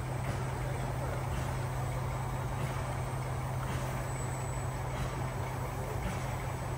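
Steady low mechanical drone of a running vehicle, even throughout, with faint soft ticks about once a second.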